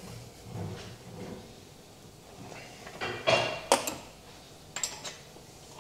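A few light metal clinks and knocks from engine parts and tools being handled at the engine stand, about three seconds in and again near five seconds.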